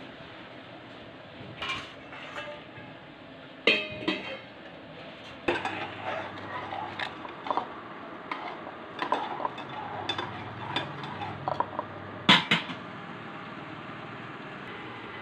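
Clinks and clatter of stainless-steel kitchenware being handled, with sharper clanks about four seconds in and again near twelve seconds.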